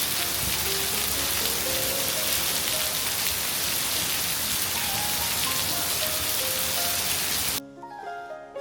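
Heavy rain pouring down in a dense, steady hiss, which cuts off suddenly about a second before the end, leaving quieter background music.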